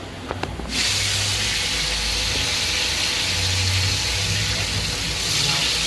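Hot cooking oil sizzling steadily in a pot, setting in suddenly under a second in, over a low steady hum.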